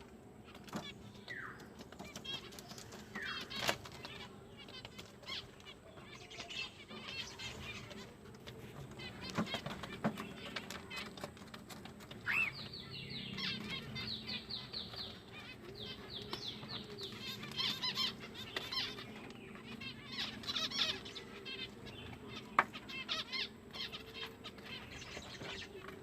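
A small bird chirping and chattering, with short rising calls and a quick run of repeated high notes about halfway through, among fluttering sounds.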